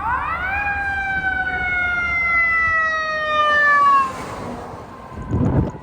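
Fire apparatus siren swooping up sharply, then falling slowly in pitch, and cutting off about four seconds in. A rush of noise follows, then a low thump near the end.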